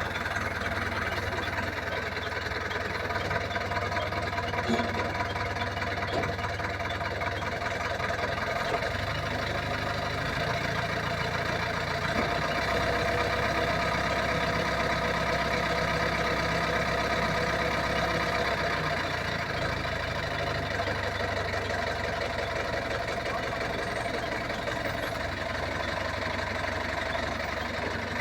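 An engine running steadily, its low hum shifting slightly in pitch a couple of times.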